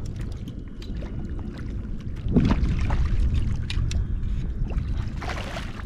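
Sounds of fishing from a kayak on the water: a steady low rumble of wind on the microphone, scattered light clicks, and two brief hissing swishes, one about two and a half seconds in and one near the end.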